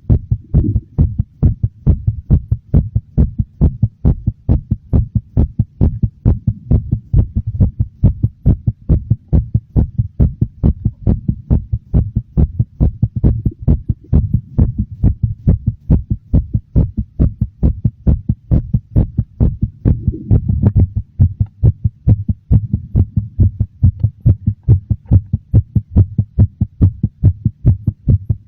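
Human heartbeat, slightly fast and very noticeable, beating in a steady, regular rhythm over a low hum.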